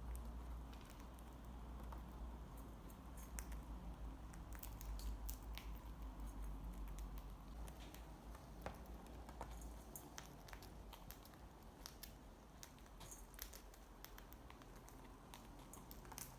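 Cockatiels eating: faint, irregular small clicks and crunches of beaks nibbling food, with no whistles or calls.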